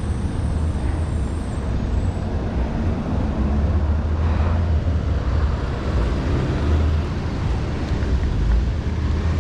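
Steady low wind rumble and road noise on a bicycle rider's microphone while riding, with a faint high whistle in the first second or so.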